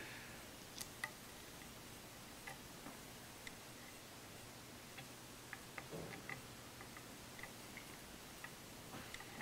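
Faint, irregular light clicks and ticks of small metal parts being handled while fitting the pistol grip cap to a rifle stock with a screwdriver.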